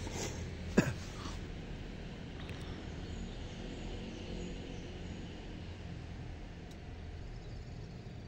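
Steady low outdoor rumble, like distant traffic, with a short sharp sound just under a second in.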